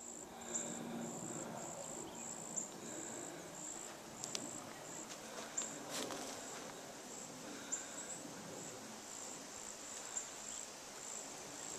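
High-pitched insect chirping, cricket-like, in short bursts that repeat every half second or so, over faint background noise with a few small clicks.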